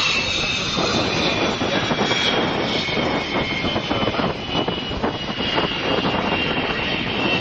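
de Havilland Sea Vixen's twin Rolls-Royce Avon turbojets running at taxi power as the jet rolls by close. A steady rush carries several high whining tones that sag slightly in pitch.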